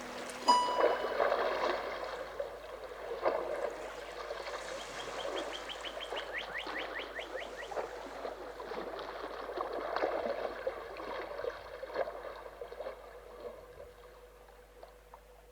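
Water lapping and gurgling with scattered splashes and knocks, fading out gradually. A rapid run of bird chirps comes about five seconds in.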